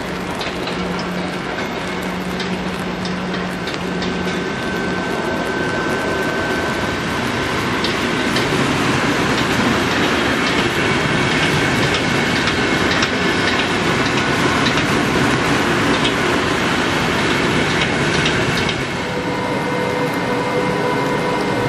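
VR electric multiple-unit train running past along the station tracks, with a steady rumble and its wheels clicking over rail joints and points, busiest in the middle. About 19 s in this gives way to a steadier hum with a held whine from a VR electric locomotive moving slowly along the platform.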